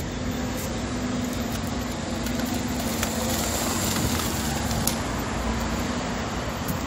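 Steady city street noise of road traffic, with a low steady hum throughout.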